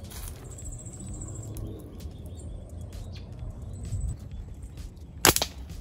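A slingshot fired with a sharp, loud snap near the end, the band and pouch releasing the shot at a dove in the trees. Before it, faint high bird chirps over low outdoor rumble.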